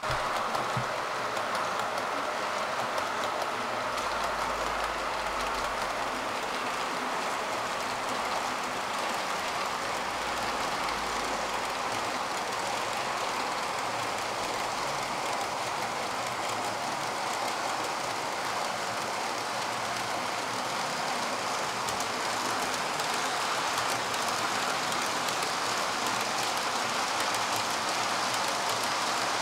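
OO gauge model freight train running along the layout's track: a steady rolling rattle of small metal wheels on rail, with fine clicking running through it.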